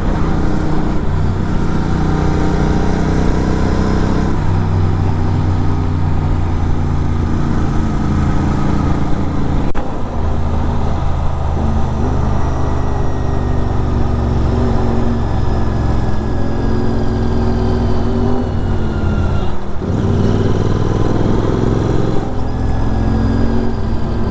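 Superbike engine through an aftermarket exhaust, running steadily under way while riding. The engine note dips briefly about ten seconds in and again near twenty seconds, then settles at a new pitch.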